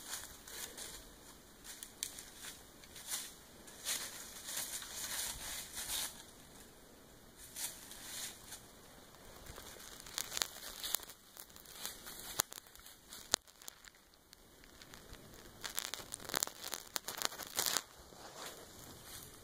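Irregular rustling and crinkling in short bursts, with a single sharp click about thirteen seconds in.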